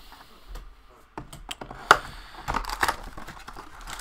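Cellophane wrap crinkling and cardboard clicking as a sealed hockey card box is cut open and its lid lifted. There is a sharp snap about two seconds in, then a denser stretch of crinkling.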